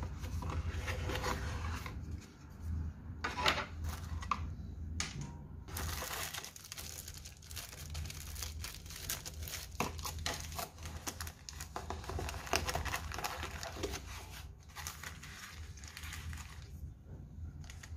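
Clear plastic packaging crinkling and rustling as hands handle the plastic-sleeved electrode pads of a TENS unit. The crinkling is heaviest through the middle.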